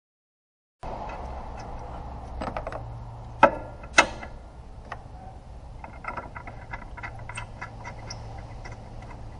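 Radiator hose and fittings being handled and fitted by hand: two sharp knocks about three and a half and four seconds in, then a run of small clicks, over a low steady hum. The sound starts about a second in.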